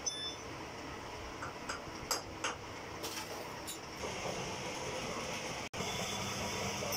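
Metal lathe in a workshop: a few light metallic clinks of tools and parts being handled over a steady machine hum, then the lathe's chuck spinning and the machine running louder and steadily from about four seconds in, broken by a very short gap near the end.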